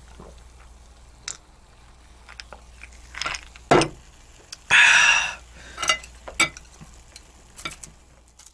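Tabletop handling sounds: a glass of iced drink knocks down on the table about four seconds in, the ice cubes clink in it, and a short louder rattle follows, with scattered light clicks of dishes and tableware.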